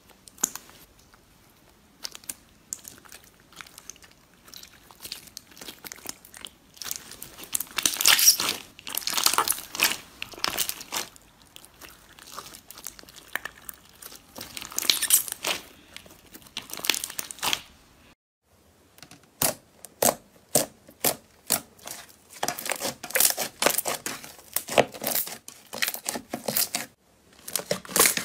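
Hands squeezing and squishing a clear jelly-cube slime, giving wet crackling and popping in bursts. After a brief gap about two-thirds of the way through, a glossy blue slime gives rapid sharp pops and clicks as it is pressed and worked.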